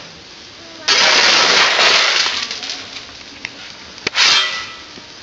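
Coal being shovelled to stoke a coal-fired boiler furnace: a shovel scraping and crunching through coal in two loud bursts, one starting about a second in and lasting about a second and a half, a shorter one just after four seconds, with a sharp knock just before the second burst.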